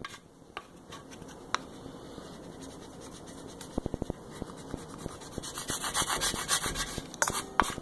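A hard plastic spatula scraped hard back and forth over transfer tape and vinyl decal on the mixer's body, burnishing the decal so it sticks. The strokes are sparse at first, with a quick run of clicks about four seconds in, and grow fast and dense near the end.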